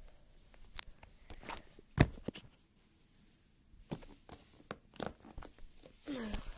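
Hands handling the recording device close to the microphone: scattered knocks and rubbing, with one loud thump about two seconds in.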